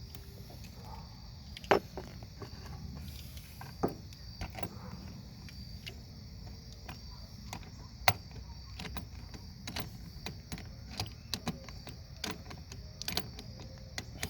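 Irregular metallic clicks and taps of a wrench and hardware being worked on a car battery cable clamp, with a few sharper knocks and quicker clicking toward the end. Crickets chirp steadily behind.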